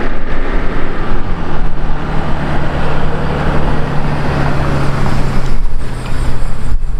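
Mercedes GLE 350d with its six-cylinder diesel, towing a twin-axle trailer, drives past close by: loud tyre and road noise over a steady low engine hum.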